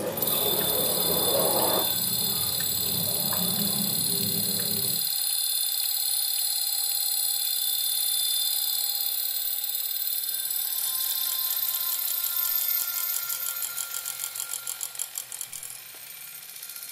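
Live experimental electronic noise music: several piercing high steady tones held together over a low rumbling noise that cuts off suddenly about five seconds in. Later the high tones begin to pulse a few times a second and fade near the end.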